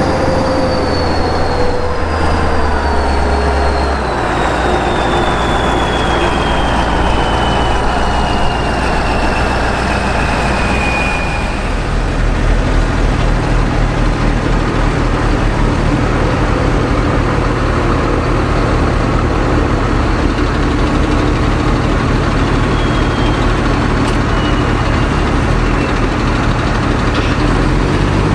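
Kirovets K-700A tractor's V8 diesel running steadily under load while pushing and compacting silage. A high whine falls slowly in pitch over the first dozen seconds, and the engine's low beat grows stronger about twelve seconds in.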